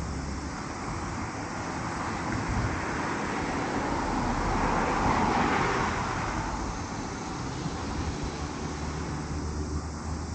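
A car passing on a nearby road: tyre and engine noise swells to a peak about halfway through and then fades away, over a steady low rumble of traffic and wind on the microphone.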